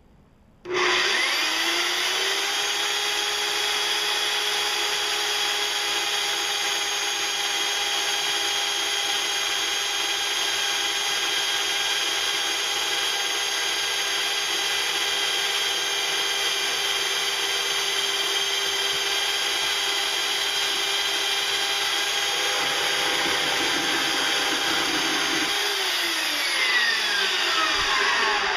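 Harbor Freight portable variable-speed band saw spinning up about a second in and then running steadily as its blade cuts through 1/8-inch-thick steel angle iron. The cutting noise is steady with a motor whine. Near the end the trigger is released and the motor winds down with a falling whine.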